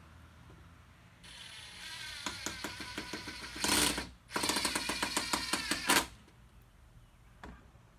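Power driver running a 2-inch wood screw into the chair's wooden arm. The motor whirs up about a second in and drives with a rapid, even rattle, stops for a moment around four seconds, then drives again until about six seconds in.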